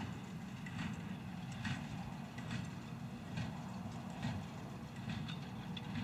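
John Deere 6125R tractor running steadily while pulling an International small-square baler, with the baler's plunger giving a sharp knock at a regular beat of a little more than one stroke a second as it packs straw.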